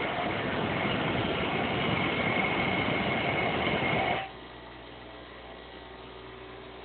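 Steel lock pick blank held against a running electric grinder, giving a steady loud grinding noise with a faint high whine. About four seconds in the grinding cuts off suddenly as the piece is lifted away, leaving the grinder's fainter motor hum.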